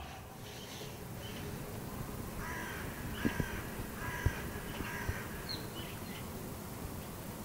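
A crow cawing about four times in quick succession near the middle, over a steady faint outdoor hiss, with a few soft knocks.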